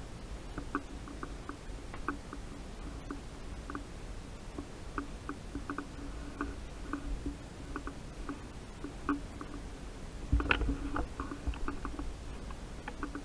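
Light, irregular clicks and taps from a player's footsteps and kit while moving through the building, with one louder knock about ten and a half seconds in.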